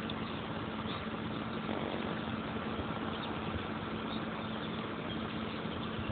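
Steady background machine hum with an even hiss, one low tone held without change and no distinct events.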